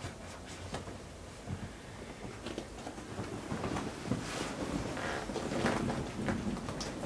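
Handling noise from an inflatable vinyl pool toy and fur costumes: rustling with scattered light clicks and knocks, a little busier in the second half.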